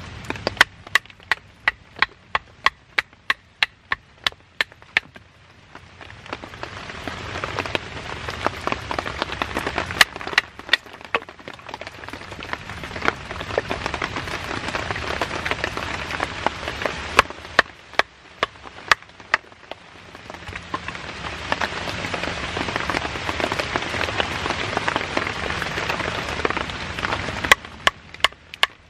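Wooden baton striking the spine of a fixed-blade knife to split a stake on a chopping stump: a quick run of sharp knocks, about three a second, for the first five seconds, a few single knocks later, and another short run near the end. Between the runs a rushing hiss swells up and dies away twice.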